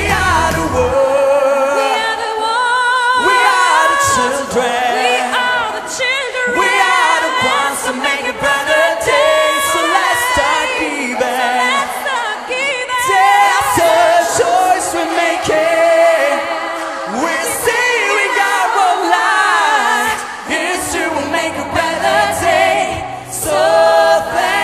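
Show music with voices singing, their held notes wavering with a wide vibrato; the bass drops out about a second in, leaving the voices over light accompaniment.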